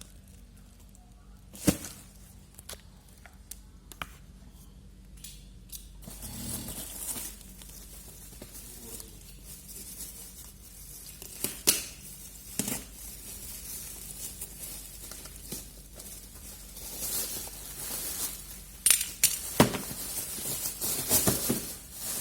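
A parcel being unpacked by hand: packaging rustling and tearing, with scattered sharp clicks and knocks as the contents are handled, busiest near the end.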